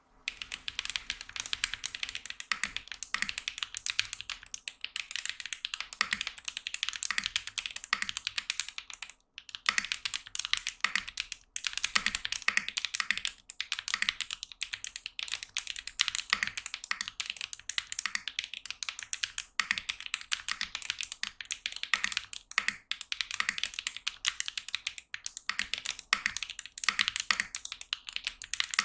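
Fast, steady typing on a Mode Sonnet custom mechanical keyboard with Moondrop Tessence tactile switches, an aluminium plate and GMK keycaps: a dense run of keystroke clacks, with short pauses about 9 and 11 seconds in.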